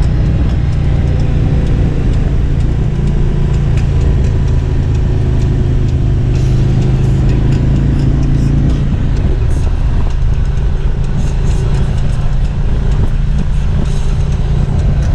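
Harley-Davidson Electra Glide's V-twin engine running at road speed, with steady wind and road noise. The engine note fades somewhat about nine seconds in.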